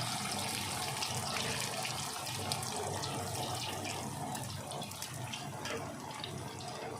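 Raw potato fries deep-frying in hot oil: a steady sizzle with dense fine crackling.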